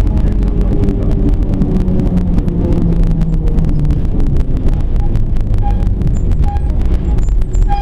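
Tram running along the street, heard from inside the car: a steady low rumble of the running gear, with a rapid crackle of clicks and a hum that shifts in pitch. A few short higher tones sound near the end.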